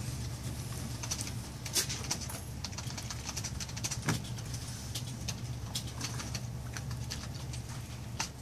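Pen nib scratching across card stock in short strokes while inking line work, with a couple of louder taps about two and four seconds in, over a steady low hum.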